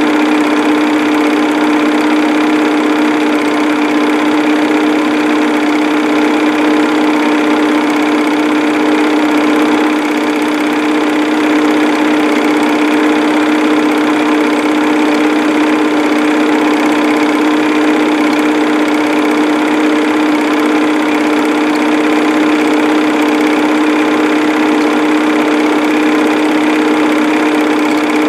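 Film projector running: a steady mechanical whir with a constant hum that does not change.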